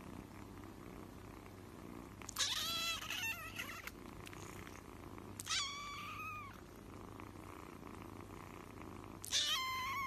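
Kittens meowing: three high-pitched mews, the first about two seconds in, the second about five and a half seconds in, and a third starting near the end.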